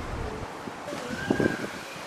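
Wind rumbling on the microphone over outdoor background noise, with a short burst of people's voices about a second in.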